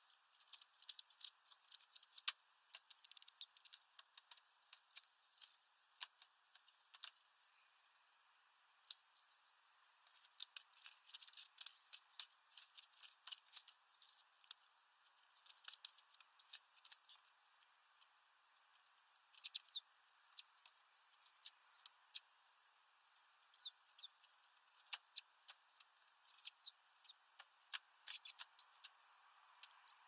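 Quick, irregular ticking and tapping from a great tit and a blue tit pecking at food through a mesh feeder bag, coming in bursts, with a few short high-pitched chirps in the second half.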